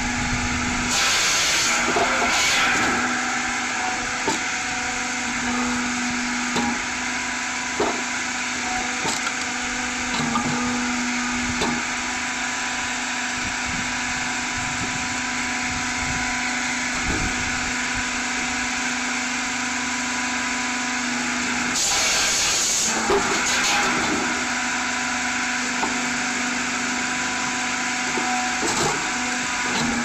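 Trailer-mounted firewood processor running steadily, its saw cutting through a log twice, about a second in and again about 22 seconds in, with sharp knocks of wood being split and dropping at intervals.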